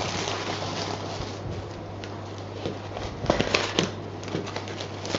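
Cardboard box being opened by hand: flaps scraping and rustling, with a cluster of sharper crackles and knocks from the packing a little over three seconds in, over a steady low hum.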